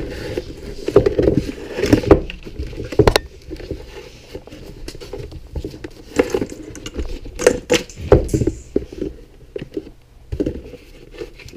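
Black plastic sensor box handled on a workbench while the sensor's wire is fed through a drilled hole: irregular clacks, knocks and rubbing of plastic and cable, some sharper knocks scattered through.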